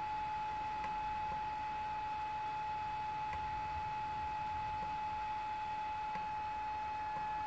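Steady high-pitched electronic whine, one constant tone, with a few faint ticks.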